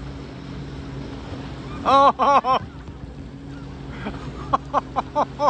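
Jet ski engine idling with a steady low hum as the craft drifts slowly on open sea. Over it come short, high, excited cries: three about two seconds in, then a quick run of them near the end.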